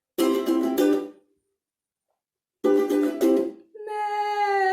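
Ukulele strummed in two short bursts with a silent gap between them. Near the end a woman's voice starts a long, drawn-out 'mé', a sung imitation of a sheep's bleat that falls slowly in pitch.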